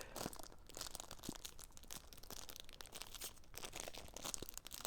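Faint, irregular crinkling and tearing of a Pokémon card booster pack's foil wrapper as it is torn open, with small clicks and crackles scattered through.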